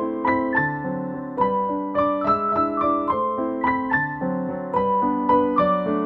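Piano music: a melody of struck notes over chords, about three notes a second.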